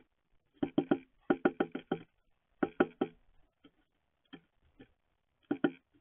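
A tufted titmouse pecking at seeds on a feeder right against the microphone, its bill making sharp taps in quick bursts of three to five. It taps most busily in the first three seconds, then in smaller, sparser groups.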